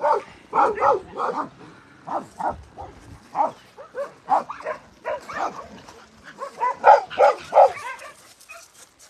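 Dogs barking in short, repeated barks that come in clusters, with a fast run of barks about seven seconds in.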